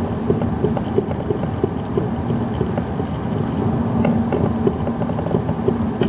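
Saab 9-3 driving over rough tarmac, heard from inside the car: steady engine and road noise with repeated short, irregular knocks from the front suspension, the sign of a worn front lower wishbone ball joint.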